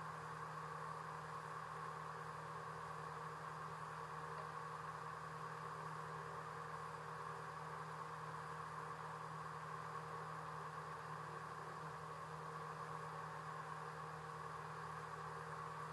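Boat engine running steadily: an even, unchanging hum under a hiss of noise.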